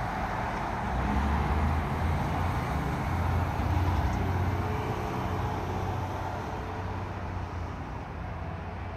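Fire department aerial ladder truck's diesel engine rumbling as it pulls out and drives away. It is loudest a second or so in and fades toward the end, over the noise of road traffic.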